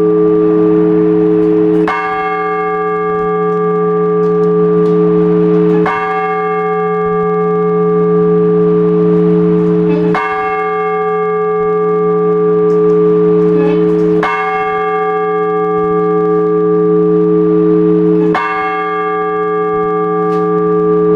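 A single large Orthodox church bell tolled slowly for the all-night vigil, the blagovest. It is struck five times at even intervals of about four seconds, and each stroke rings on until the next.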